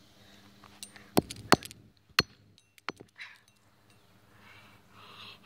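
Sharp clinking knocks of a small plastic-and-metal fidget spinner against asphalt: three loud strikes within about a second, then a lighter knock.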